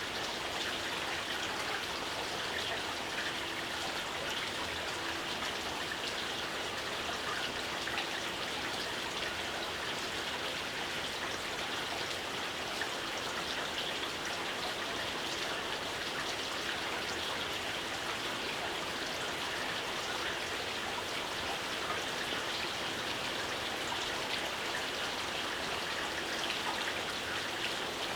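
Steady rain with fine, scattered drop ticks over an even hiss.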